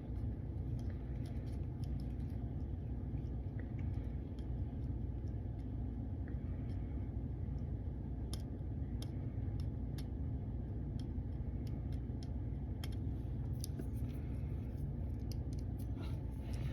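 Steady low background rumble with scattered faint, sharp clicks and ticks throughout.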